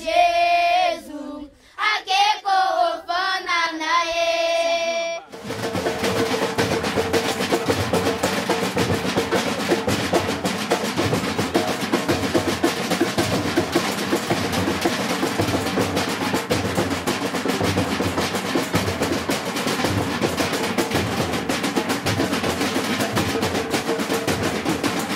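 Children's voices sing a short phrase, then about five seconds in a children's percussion group breaks in: drums and a tambourine playing a fast, dense Afro-Brazilian batuque rhythm.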